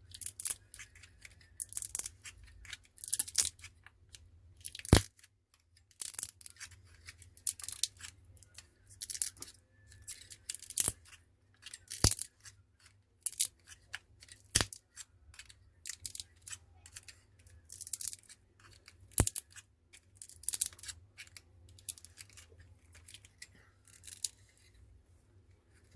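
A smartphone battery being pried out of its adhesive with a pry tool: repeated short scraping and tearing sounds as the glue lets go little by little, with a few sharp clicks of the tool against the phone.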